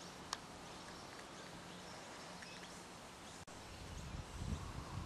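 Faint outdoor field ambience with a few faint bird chirps and one short, sharp click about a third of a second in. Over the last second or so, a low, gusty rumble builds up.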